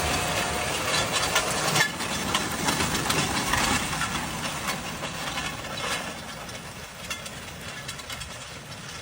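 Tractor pulling a seed drill through a field: a rough engine-and-machinery noise with many small clicks and rattles, slowly growing fainter.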